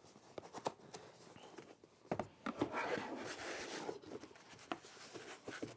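Packaging being handled as a power strip is unpacked from its box: scattered clicks and knocks with rustling and crinkling, busiest in the middle.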